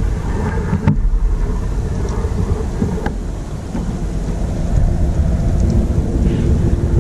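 Wind buffeting an open action-camera microphone, a heavy, uneven low rumble, with a couple of light knocks about one and three seconds in.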